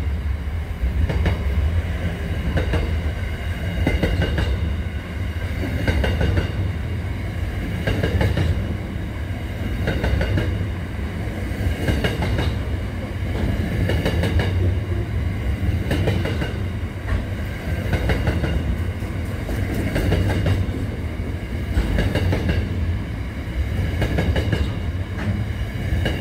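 Container freight train passing close at speed: a steady low rumble of the wagons, with the wheels clacking over rail joints about every two seconds and a thin high ringing from wheel and rail over it.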